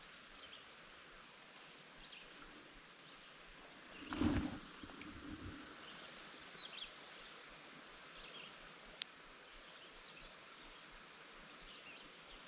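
Quiet pond-side outdoor ambience with faint, scattered bird chirps. About four seconds in comes a brief louder rustle of handling, and later a single sharp click; a faint steady high buzz sets in about halfway through.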